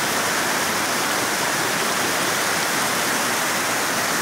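Muddy overflow water from a spilling reservoir rushing and churning over rocks in its spillway channel: a steady, even rush of water.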